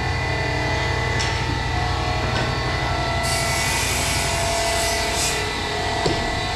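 Woodworking shop machinery running with a steady low hum and a constant whine, and a single knock about six seconds in.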